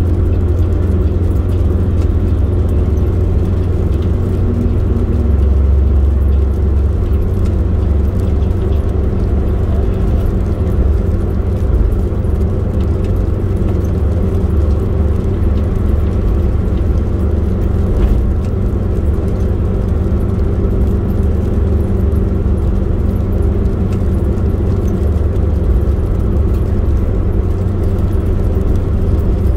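Steady low rumble of a moving road vehicle's engine and road noise while driving, with a brief swell about five seconds in.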